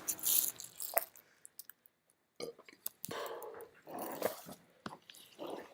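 Handling noise from a camera being picked up and carried: a series of short, irregular rustles and muffled knocks.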